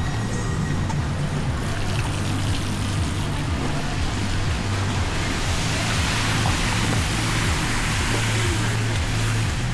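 Music with a pulsing bass line over street noise. Around the middle, the tyre hiss of a passing vehicle swells and fades.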